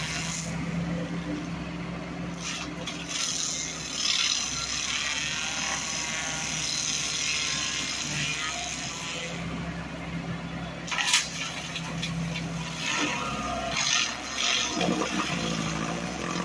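AGT hydraulic stump grinder, driven off an Everun ER416 mini loader, chewing into a tree stump, with wood chips rattling against the cutter housing over the loader's steady engine hum. There is a sharp crack about eleven seconds in and a few short bursts near the end.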